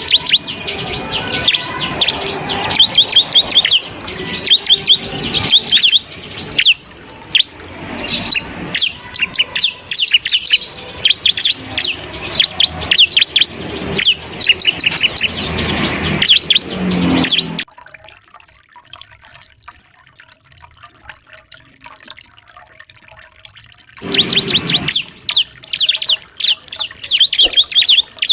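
Bar-winged prinia (ciblek) singing in dense, rapid chirping trills. The song cuts off suddenly about two thirds of the way through, leaving a quieter stretch of several seconds, then starts again near the end.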